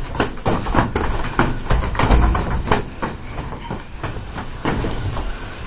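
Scuffle between two people fighting: a fast, irregular run of thuds, knocks and scrapes, heaviest about two seconds in.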